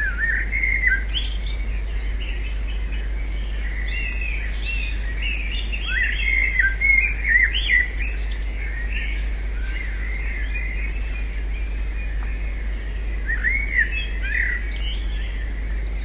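Several small songbirds chirping and twittering in quick, overlapping notes, busiest about six to eight seconds in, over a steady low hum.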